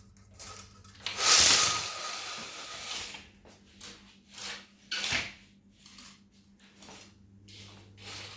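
Handling noises: a loud scraping rush about a second in, followed by several short knocks and clicks, over a faint steady low hum.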